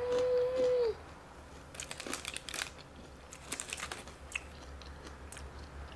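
A short hummed "mmm", then crunchy bites and chewing of deep-fried jalapeno bites (Jalitos), in two crackly bursts about two seconds and four seconds in.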